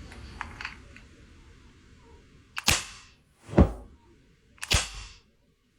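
Toy gun firing: two sharp cap-gun-like bangs about two seconds apart. Between them, about a second after the first bang, comes a whoosh falling in pitch. A few faint clicks come first.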